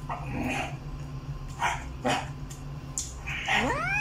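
Eating sounds from a mukbang: a handful of short wet smacks and chewing noises over a steady low hum. About three and a half seconds in comes a short rising whine.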